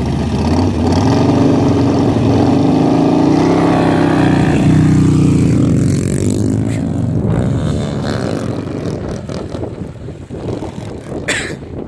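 Two motorcycles, a Harley-Davidson V-twin and a Honda Grom single, revving hard as they launch from a standstill and accelerate away on a dirt track. The engine noise is loudest for the first six seconds or so, then fades as the bikes pull into the distance.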